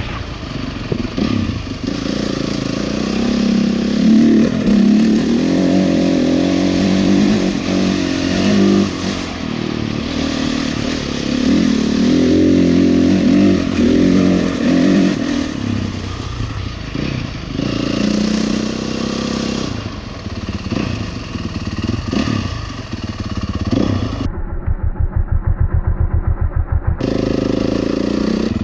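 Honda CRF450 dirt bike's single-cylinder four-stroke engine running under riding, the revs rising and falling again and again through the gears. Near the end the sound turns muffled for a few seconds, leaving a low, rapid, even exhaust pulsing, before the full engine sound returns.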